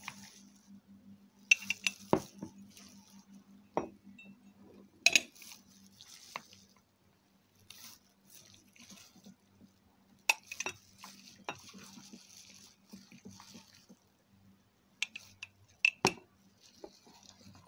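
Wooden spoon scooping fruit salad from a plastic bowl into glass tumblers: sharp clinks and knocks of the spoon against the glass, several in quick clusters, with soft scraping between.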